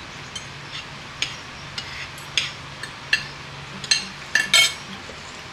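Utensils clinking and tapping against dishes: about a dozen light, irregular clinks, the loudest cluster near the end.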